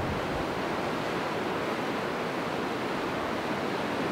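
Steady wash of small waves on a sandy beach, mixed with wind buffeting the microphone; no distinct locomotive beat stands out.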